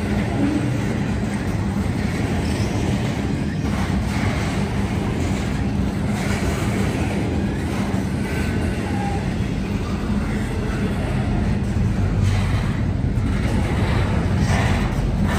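Freight cars of a passing intermodal train rolling over the tracks: a steady, continuous noise of steel wheels on rail with a low hum.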